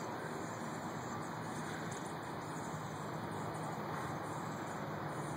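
Steady outdoor background noise: an even low hum, like distant traffic, with no distinct events.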